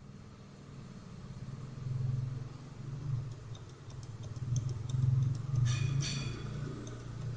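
A motor vehicle engine running with a low rumble that swells and eases, with a few faint clicks about five to six seconds in.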